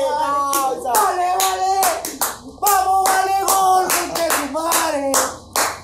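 Men singing a drawn-out celebratory football chant with rhythmic hand clapping, about two claps a second, in celebration of a goal.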